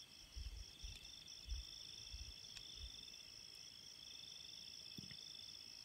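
Night insects singing: one steady high-pitched trill and a second, lower, pulsing trill, both faint. A few soft low thumps come in the first three seconds.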